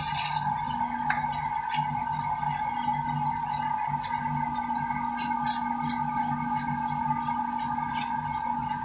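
Steady machine drone with a low hum that pulses about twice a second, under scattered light clicks and clinks of loose rock being scooped by hand in the shaft.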